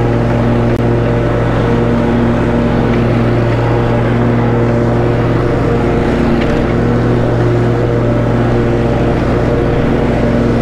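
Snapper Pro walk-behind lawn mower running steadily while cutting grass, its engine drone holding a constant pitch.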